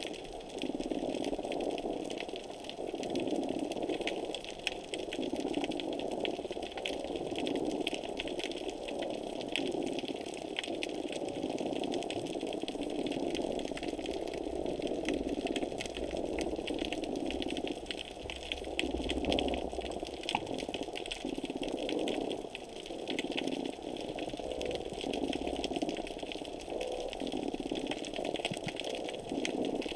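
Underwater sound picked up by a camera resting on the seabed: a dense, constant crackle of tiny clicks over a low rushing hum that swells and fades about every one to two seconds.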